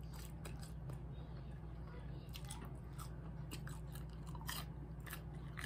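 Close-miked chewing of french fries: wet mouth clicks and lip smacks scattered irregularly over a steady low hum.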